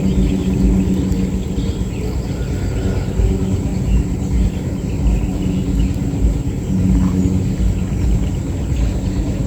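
Wind rumbling on the microphone outdoors, over a steady low engine-like hum that swells twice.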